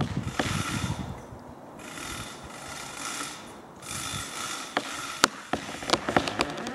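A rope-rigged backyard tree being felled: rasping bursts about a second long, then a run of sharp cracks and clicks in the last two seconds, shortly before the tree comes down.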